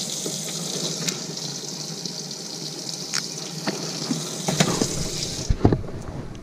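Bass boat live well with water spraying and running into it, a steady hiss that cuts off about five and a half seconds in. A few knocks and handling thumps come just before it stops.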